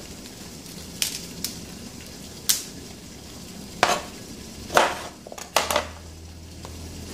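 Broccoli being broken into florets by hand and trimmed with a knife on a cutting board: irregular crisp snaps and knife knocks, about one every second or so, the loudest a little after the middle.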